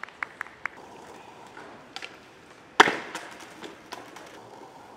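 Skateboard slam on asphalt: a few light clicks of the board, then one loud impact nearly three seconds in that dies away quickly, followed by smaller knocks.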